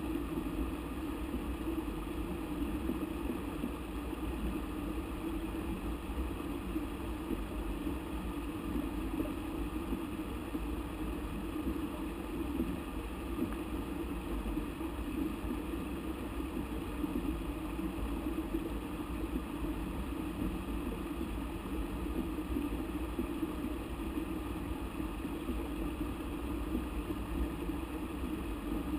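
River water rushing steadily over rapids, an even, low rumble.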